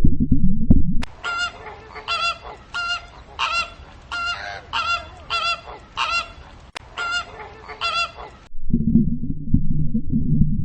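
A goose honking over and over, about a dozen loud nasal honks at roughly one and a half a second for about seven seconds. A loud low rumbling sound fills the first second and returns near the end.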